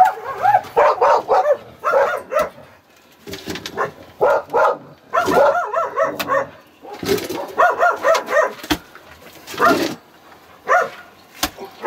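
A dog barking over and over, in runs of quick barks with short pauses between them.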